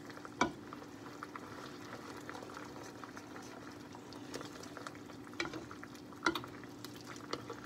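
Mushroom Marsala sauce simmering and bubbling in a frying pan while a spoon stirs it, knocking against the pan a few times, over a steady faint hum.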